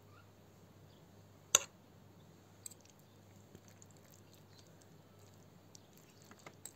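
Fork and spoon picking apart cooked lamb head meat on a metal serving platter: faint scrapes and ticks, with one sharp clink of metal on metal about a second and a half in and a fainter one about a second later.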